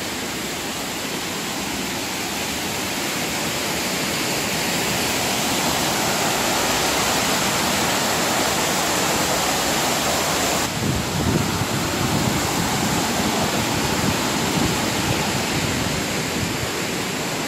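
Steady rushing of water pouring through an old mill's sluice channels. Partway through it shifts suddenly to a lower, more uneven rush.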